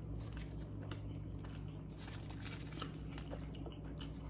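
Close-miked chewing: faint, scattered mouth clicks and smacks over a steady low hum.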